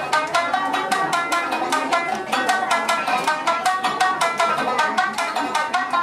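Tsugaru shamisen played solo: a fast, even run of sharp struck notes, each with a percussive snap of the plectrum on the skin.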